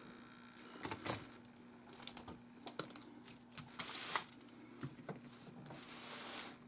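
Small clicks and taps of laptop parts and tools being handled on a bench, with two stretches of soft rustling, the louder one near the end.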